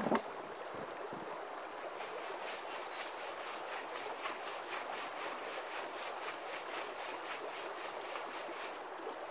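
Gravel and small rocks rattling and scraping on the mesh of an Arbor Fabricating 1/8-inch classifier as it is shaken over a bucket, a steady rhythm of about three strokes a second that starts about two seconds in and stops shortly before the end.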